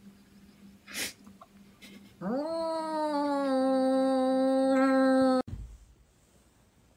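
Frightened cat with arched back and puffed tail giving one long, steady defensive yowl. It rises in pitch as it starts about two seconds in, holds, and is cut off abruptly a little after five seconds. A short breathy puff comes about a second in.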